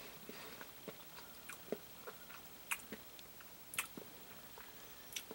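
Faint mouth sounds of a person tasting a pinch of dry beef rub: irregular small lip smacks and clicks.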